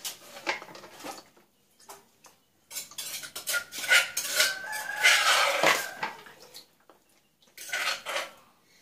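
Cooked freshwater snail shells clinking and clattering against each other and an aluminium bowl as they are handled and picked out, in quick irregular clicks with a dense run of clatter in the middle.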